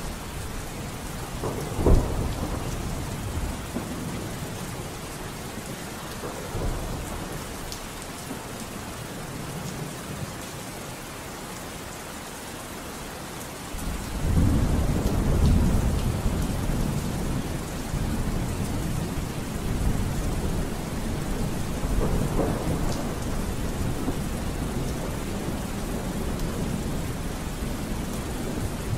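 Steady rain with thunder: a sharp crack about two seconds in, and a long low rumble of thunder starting about halfway through that slowly fades back into the rain.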